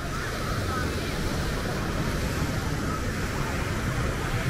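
Steady beachfront ambience: a low rumble of road traffic mixed with surf, with faint distant voices.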